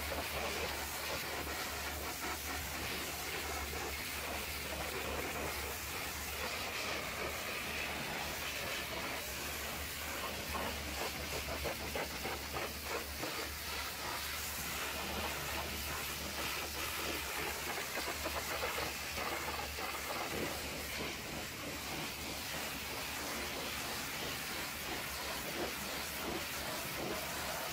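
High-pressure washer lance spraying a water jet against a truck's side panels, fuel tank and front wheel: a steady hiss, with a steady low hum underneath.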